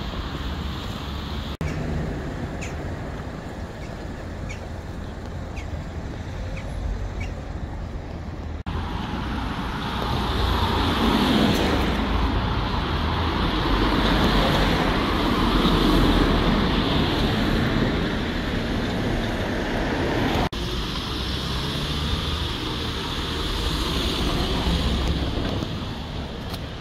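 Street traffic: cars driving past on the road alongside, with a louder pass between about ten and twenty seconds in.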